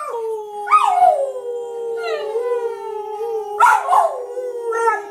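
A dog howling: one long held note, with higher cries that slide down about a second in and twice near the end.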